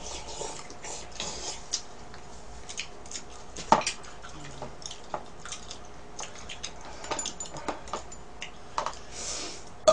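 Close-miked eating sounds: chewing and mouth smacking, with scattered sharp clicks of utensils against a bowl and plastic food containers, one louder click a little under four seconds in.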